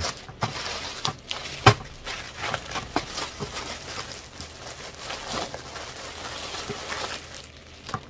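Clear plastic poly bag crinkling and rustling as a t-shirt is handled and unwrapped from it: a run of small irregular crackles, with one sharp snap a little under two seconds in.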